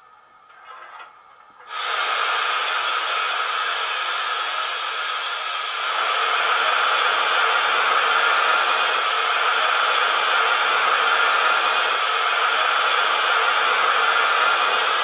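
Steady steam hiss from a model steam locomotive's DCC sound decoder, played through its small speaker in the tender. It starts suddenly about two seconds in and grows a little louder about six seconds in, with no exhaust beats.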